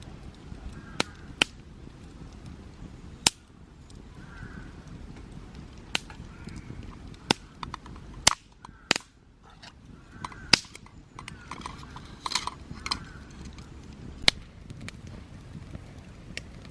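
Wood campfire burning, with a dozen or so sharp pops and snaps at irregular intervals over a steady low rumble.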